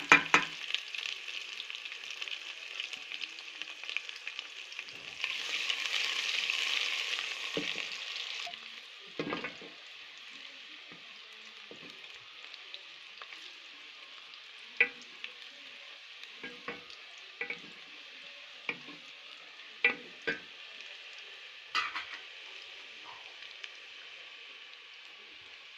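Ginger and garlic sizzling in hot oil with frying onions in a metal cooking pot, stirred with a wooden spoon. The sizzle is loud at first and strongest about six to eight seconds in, then falls to a low hiss, with occasional sharp knocks of the spoon against the pot.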